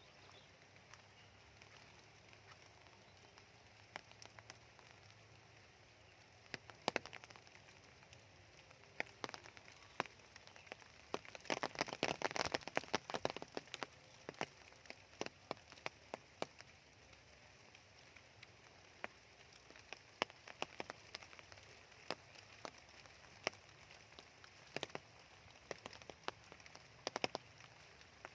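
Soft raindrops falling in scattered, irregular drips and taps, with a brief denser patter about halfway through.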